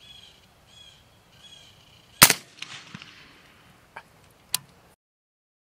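A single shot from a suppressed Rock River AR-15 in 5.56 firing a supersonic 55-grain full-metal-jacket round, about two seconds in. The suppressor damps the bang but not the bullet's supersonic crack, and a brief echo follows. A few short bird chirps come before it, and two sharp clicks follow a couple of seconds later.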